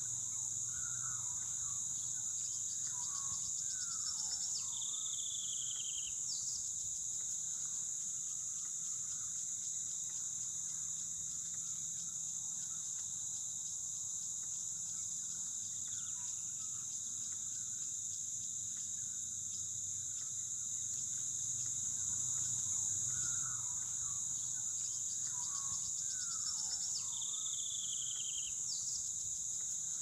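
Steady high-pitched insect chorus running without a break, with a bird calling briefly a few seconds in and again near the end.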